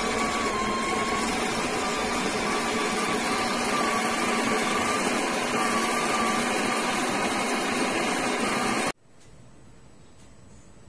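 Built-in coffee grinder of an espresso machine grinding beans into a mug: a loud, steady motor whine and grind that cuts off suddenly about nine seconds in.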